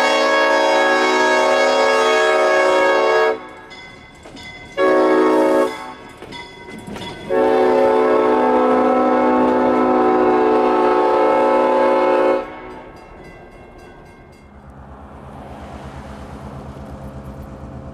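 Air horn of a CF7 diesel locomotive, sounded as it approaches and passes close by: a long blast, a short one and another long one, each a chord of several notes. After the horn stops there is a quieter low rumble near the end.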